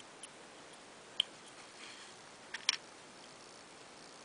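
A few faint, sharp clicks of a small 130-size toy DC motor's parts, the plastic end cap, armature and metal can, being handled and fitted together by hand: one about a second in and a quick pair near three seconds.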